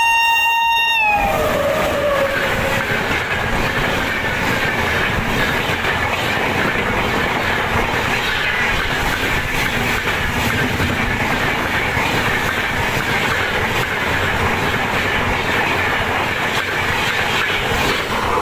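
An Indian Railways WAP-7 electric locomotive sounds its horn, which drops in pitch as it passes about a second in. A long train of LHB coaches then goes by close and at speed, with a steady, loud noise of wheels on the rails.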